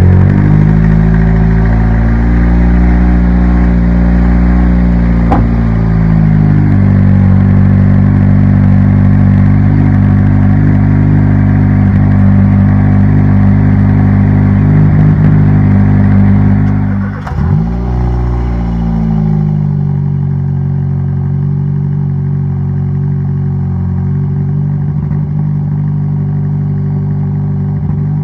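Kia Cerato (Forte) GT's 1.6-litre turbocharged four-cylinder idling through its stock exhaust after a cold start, the idle speed shifting slightly a few times. About 17 seconds in the engine note dips sharply and recovers, then it settles a little quieter with less deep rumble.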